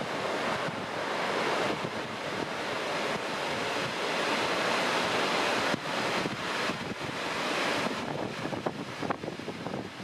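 Heavy typhoon-swell surf: dumping waves crashing and washing up in a continuous rush that swells and ebbs, with wind buffeting the microphone.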